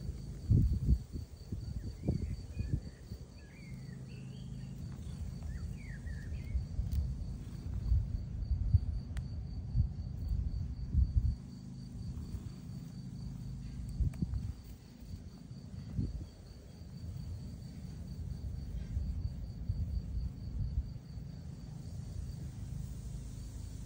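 A steady, fast-pulsing insect trill, with a few short bird chirps about two seconds in. Under it runs low rumbling noise with a few thumps, which is the loudest part.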